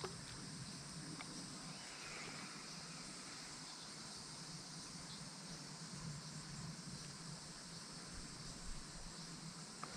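Faint, steady insect chorus in the trees, with a couple of small ticks.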